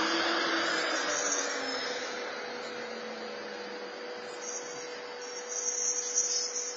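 Steady hiss with a faint constant hum running through it. The hiss is louder at first and eases off over the first two seconds, and a high-pitched buzz comes in briefly about a second in and again near the end.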